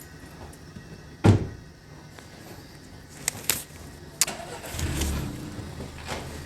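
Parts being handled: one sharp knock about a second in, then a few clicks, and a low rumbling noise from about five seconds in.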